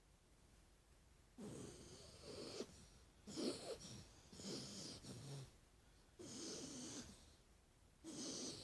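Sleeping dog snoring, a rough, breathy snore on each breath, several in a row about a second apart.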